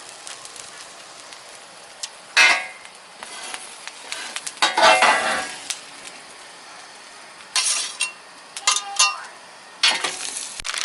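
Steak, peppers and mushrooms sizzling on a Blackstone flat-top griddle, with a metal spatula scraping across the steel surface in about five separate strokes, some with a short metallic ring.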